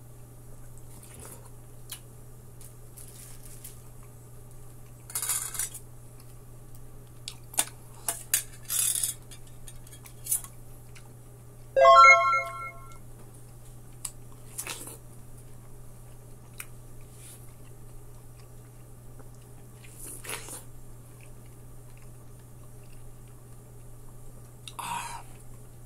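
Bites into and wet chewing of fresh, juicy melon slices, in scattered short bursts over a steady low hum. About halfway through comes a single brief, loud ringing tone.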